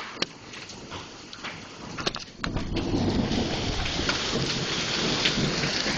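Heavy hail pelting the house: scattered sharp ticks of hailstones striking at first, then about two and a half seconds in a sudden jump to a much louder, dense clatter of hail.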